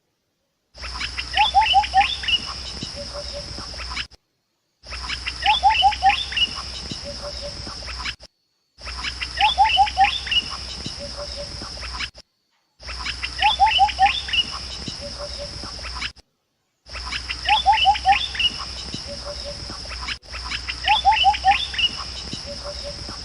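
A short forest-edge recording repeated six times with brief silent breaks: over a steady high insect drone, a bird gives a quick run of high chirps followed by three short falling notes.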